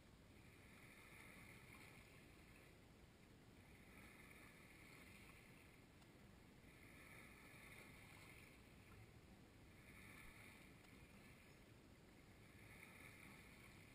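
Near silence: faint outdoor background hiss, with a faint high buzz that swells and fades about every three seconds.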